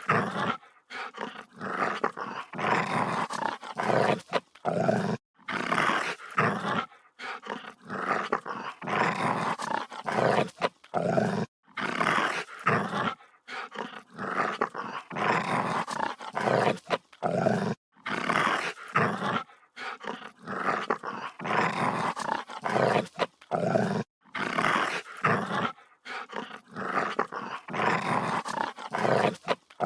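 A dog growling aggressively in a long run of rough, snarling growls, each lasting about half a second to two seconds, with short breaks between them.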